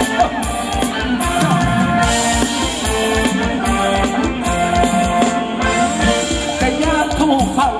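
Live Thai ramwong dance music: a band with a drum kit keeping a steady beat under a melody line.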